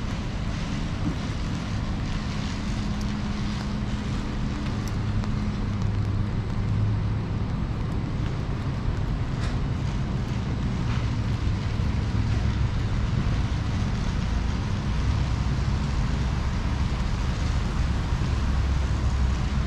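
Steady low rumble of city traffic on wet streets, with wind on the microphone and a few faint ticks. The rumble swells a little near the end.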